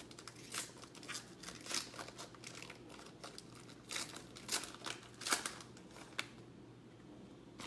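Trading cards and a pack wrapper being handled: a string of short crinkles and sharp rustles, going quieter near the end.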